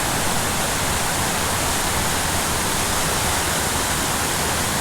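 Artificial waterfall at a small dam, water pouring steadily into the pool below as an even rushing noise.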